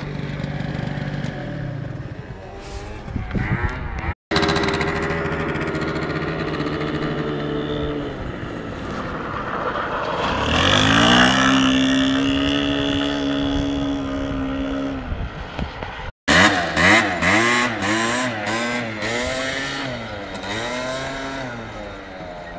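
Tuned scooter engine revving hard during skids and circles on loose dust: its pitch climbs about ten seconds in and holds high for several seconds, then rises and falls in quick repeated revs. It cuts out twice for an instant.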